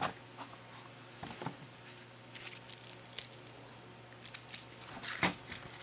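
Plastic packaging around circuit boards being handled: faint rustling and crinkling with scattered small clicks, a sharp click at the very start and a louder rustle about five seconds in, over a steady low hum.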